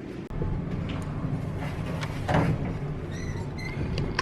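Steady low rumble of a moving vehicle heard from inside, starting just after a cut, with a few faint knocks and two short high tones about three seconds in.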